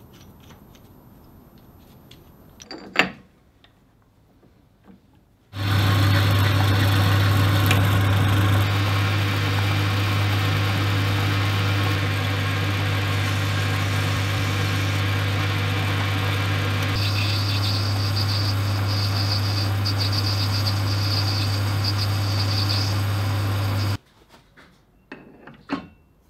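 A metal lathe running steadily, spinning brass stock while a drill in the tailstock drill chuck bores into it: a steady motor hum that starts and stops abruptly, with a thin high whine joining partway through. Before it, a sharp clink of small metal parts being handled.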